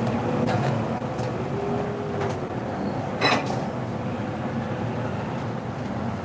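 Steady low background rumble, with a single sharp click or knock about three seconds in.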